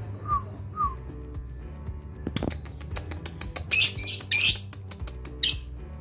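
Lovebird calling: two short, soft falling chirps near the start, then three loud, harsh, shrill screeches in the second half.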